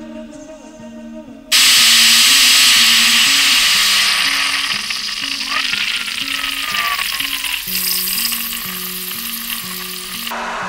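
A loud, even hiss like static starts suddenly about a second and a half in and cuts off just before the end, over music with a slow line of held low notes.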